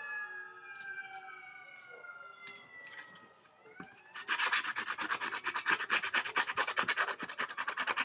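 A siren passing outside, its wail falling slowly in pitch and fading, then from about four seconds in a handheld paper-distressing tool scraped in rapid strokes along the edge of scrapbook paper, a fast scratchy rasp.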